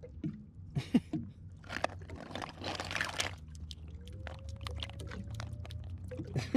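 Live bay scallops in a mesh net snapping their shells, a scatter of sharp clicks with small water splashes, and a longer splash of water about two seconds in.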